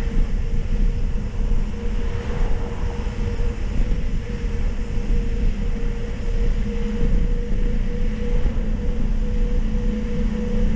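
Wind rushing over the microphone and steady rolling rumble from a mountain bike riding at speed, with a constant hum underneath.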